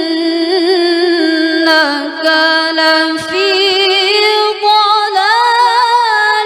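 A woman reciting the Qur'an in melodic tilawah style: long held notes with fast wavering ornaments, a short break about three seconds in, then resuming on a higher pitch that climbs again about five seconds in.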